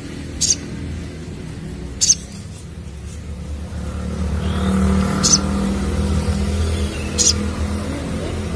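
Short, sharp high chirps from a sogon bird, four of them spaced a second or two apart, over the steady low hum of a motor vehicle engine that grows louder about halfway through.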